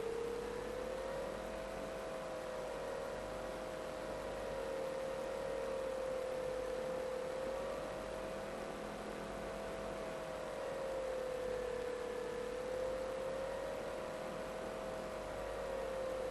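Electric motor and propeller of an FPV model plane running steadily, a whine whose pitch wavers slowly up and down, over a hiss of rushing air.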